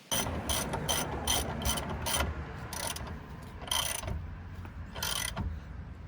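Socket ratchet wrench clicking in repeated strokes, several quick strokes in a row and then a few slower ones, as a suspension bolt is turned.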